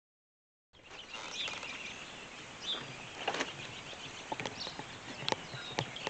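Backyard birds chirping and calling in short, scattered calls, with a few sharp, irregular knocks from carpenters hammering in the background.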